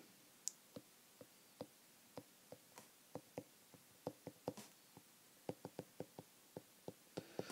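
Faint, irregular taps of a stylus on an iPad's glass screen during handwriting, a few light clicks a second.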